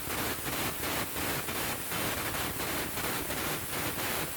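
Air carbon arc gouging: a steady, harsh crackling hiss of the arc and compressed-air jet blowing out molten metal, pulsing unevenly about three times a second.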